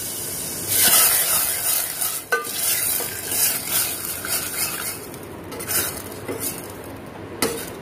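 Tadka of hot oil, mustard seeds and cumin sizzling in boiled dal in a stainless-steel pressure cooker while a steel ladle stirs and scrapes the pot, with one metal clink about two seconds in. The sizzle dies down as the tempering is stirred in.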